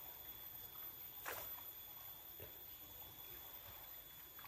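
Faint flow of a shallow stream, with a few soft knocks and clicks. The clearest knock comes a little over a second in.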